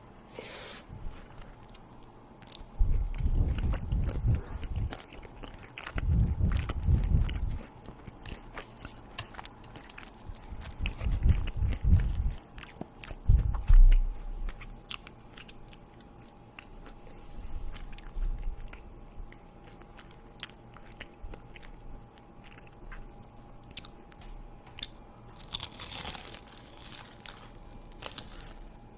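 A person biting and chewing crunchy food close to the microphone, in several heavy bursts during the first half, with scattered small clicks. A short burst of noise comes near the end.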